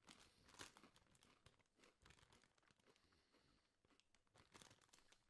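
Faint crinkling of a foil crisp packet being handled and turned over in the hands, in a few quiet rustles over near silence.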